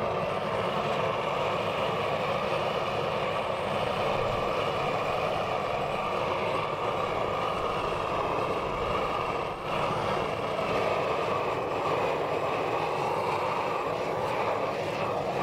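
Propane weed-burner torch burning with a steady rushing hiss of flame, dipping briefly about ten seconds in.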